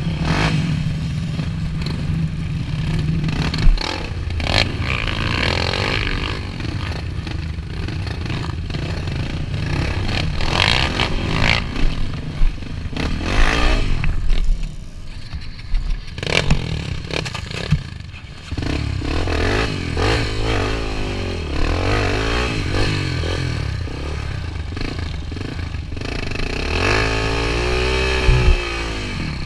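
Yamaha enduro motorcycle engine running at uneven throttle, revving up and down through deep mud, with scraping and clattering knocks from the bike. Near the end the revs rise and fall in several quick sweeps.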